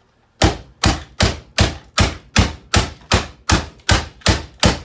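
An alarm clock being struck hard and repeatedly: a dozen even blows, nearly three a second.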